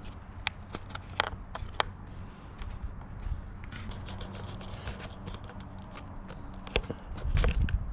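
Scattered sharp clicks and knocks of parts and tools being handled during motorcycle disassembly, over a low steady hum, with a louder low rustling shuffle near the end.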